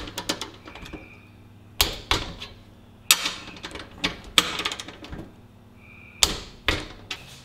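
Ratcheting torque wrench on a motorcycle muffler mounting bolt: about five strokes of the handle, each a sharp click followed by a quick run of ratchet clicks.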